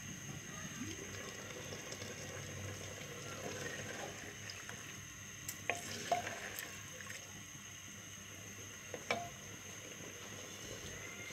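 Mutton curry sizzling in a clay handi with its cooking water nearly dried off, stirred with a wooden spoon. A few sharp knocks of the spoon against the pot come about five to six seconds in, and one more near nine seconds.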